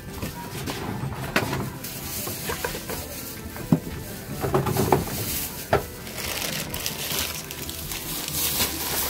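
A folding table being handled and shifted on the floor: several sharp knocks and scrapes, the loudest a little under four seconds in, over steady background noise.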